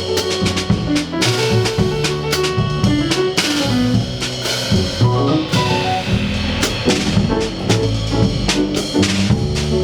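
Instrumental music with a drum kit, bass line and melodic instruments, jazz-like, playing at a steady level.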